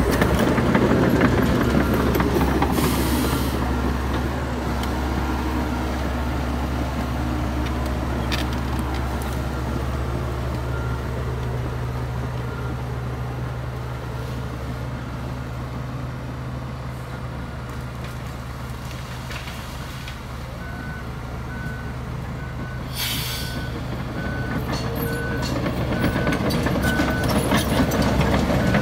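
Heavy diesel engine of earthmoving machinery running steadily, fading about halfway through and building again near the end. A reversing alarm beeps evenly, loudest in the second half, and two short hisses cut in, one early and one in the second half.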